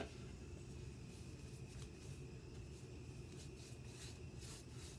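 Faint scratchy strokes of a paintbrush spreading chalk paint over a wooden dresser, a few of them late on, over a low steady room hum.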